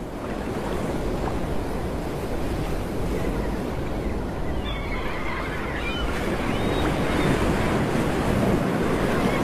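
Ocean surf washing in a steady, even rush of waves.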